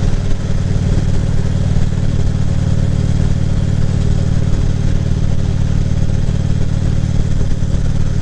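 Harley-Davidson Ultra Classic Limited's V-twin engine running steadily at cruising speed, with wind and road noise.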